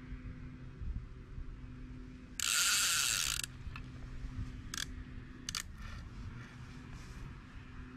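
Stubla centrepin reel's ratchet clicking rapidly for about a second as the spool spins fast, then a few short bursts of clicking as the spool turns again.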